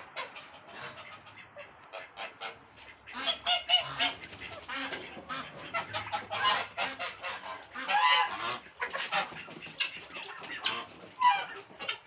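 A flock of domestic geese honking again and again, many separate calls overlapping.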